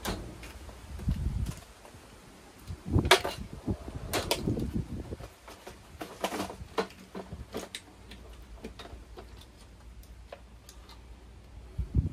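Rummaging through a metal tool chest drawer for test leads: scattered clicks, clatters and rustles of wires and small parts, loudest about three seconds in and again around four to five seconds.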